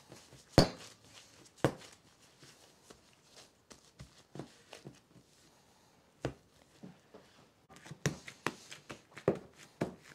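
Bread dough being worked and shaped by gloved hands on an oiled countertop: two loud slaps about half a second and a second and a half in, then scattered soft knocks. Near the end comes a quick run of knocks as the shaped loaf goes into a loaf pan.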